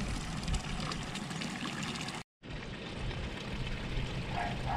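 Water running steadily into a stone trough. The sound cuts out completely for a moment a little after two seconds in.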